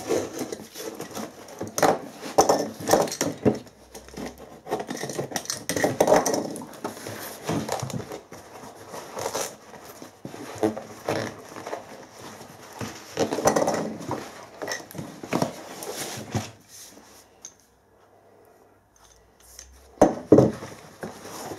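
A tape-wrapped parcel being torn open and its paper-towel packing pulled out: irregular tearing, crinkling and rustling with sharp clinks of metal tools on a wooden bench. It goes quiet for a few seconds near the end, then a couple of louder knocks follow.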